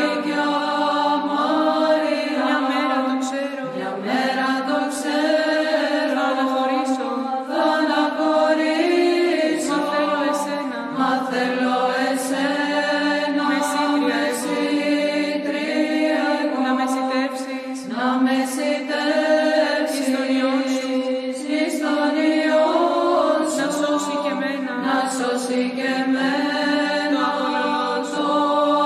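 Greek Orthodox Byzantine chant: voices singing a slow, drawn-out hymn melody in a steady unbroken line, with no speech over it.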